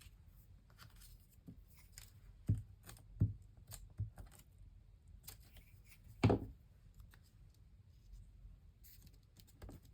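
Paper craft pieces and small tools handled on a desk: scattered light taps and rustles, with a single louder knock about six seconds in.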